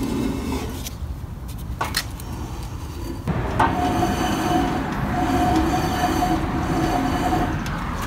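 Blade spindle of a 1972 Snapper Comet 26 rotary mower turning, with a steady grinding whine that sets in about three seconds in and stops just before the end. It is the grinding the owner has just tried to cure by greasing the spindle bearing.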